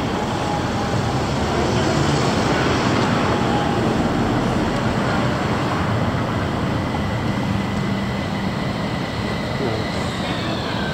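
Fukui Railway low-floor electric tram running in on street track and slowing to stop at the platform. Its electric motor whine falls in pitch near the end as it brakes.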